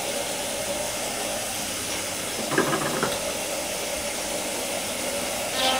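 Bathroom tap running steadily into a sink, briefly louder about two and a half seconds in.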